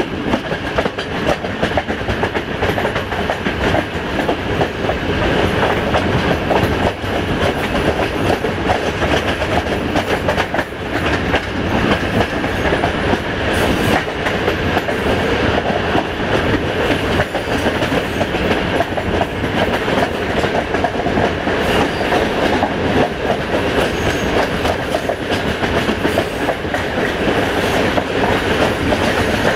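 Train running on the track: a steady rumble of wheels on rails with clickety-clack over the rail joints.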